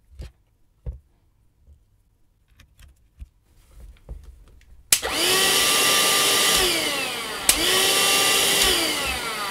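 Parkside cordless handheld vacuum cleaner's motor switched on about halfway through, running, winding down, then clicked on again and winding down once more. It runs because the battery's thermal-sensor terminal is wired in alongside plus and minus. Before it starts there are a few faint clicks of the clip leads being handled.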